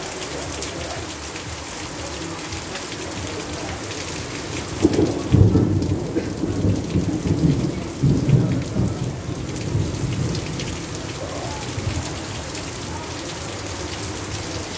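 Heavy rain pouring steadily. About a third of the way in, a low rumble of thunder rolls in, swells several times and dies away a few seconds later.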